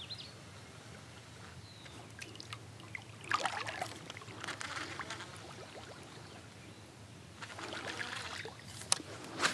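Kayak paddle strokes dipping and dripping in calm water, three soft swishes, followed by a couple of sharp clicks near the end.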